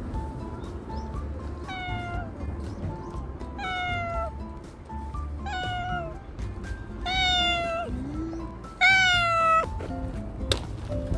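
A cat meowing five times, each meow falling in pitch, about every two seconds, the last one the loudest. Soft background music plays underneath, with a sharp click near the end.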